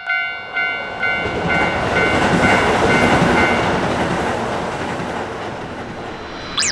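Japanese level-crossing alarm bell clanging about twice a second and fading out while the noise of a passing train swells and then slowly dies away.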